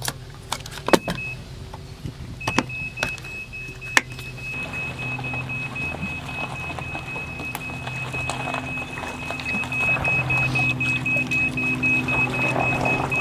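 A vehicle engine running low and steady, getting louder near the end, as the boat trailer is backed down the launch ramp. A high, rapidly pulsing electronic beep starts a couple of seconds in and carries on, with a few sharp clicks and knocks in the first seconds.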